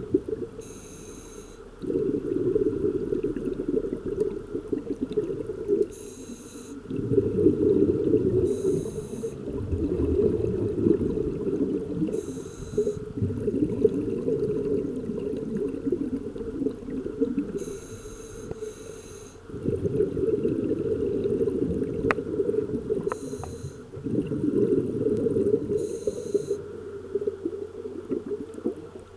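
Scuba diver breathing through a regulator underwater: a short hiss on each inhale, followed by a long low bubbling rush of exhaled air, about seven breaths.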